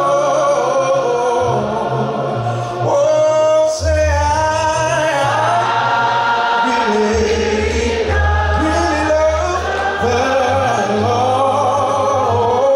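Gospel choir singing a worship song in sustained, gliding phrases over a steady bass line.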